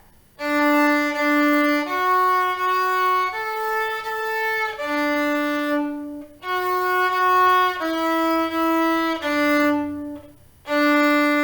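Solo viola playing a slow exercise of long single bowed notes in D major, rising through D, F-sharp and A, then stepping back down to D. There are two short breaks where the bow is lifted off the string.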